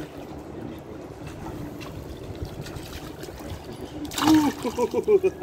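Pool water trickling and lapping steadily, then about four seconds in a sharp splash as a toddler slaps the water with his hands, followed by a short burst of voice with quick, repeated notes.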